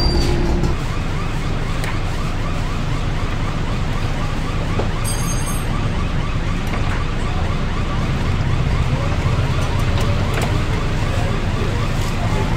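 Steady loud background din with a low hum, in which a few faint taps of knives on wooden chopping blocks can be picked out.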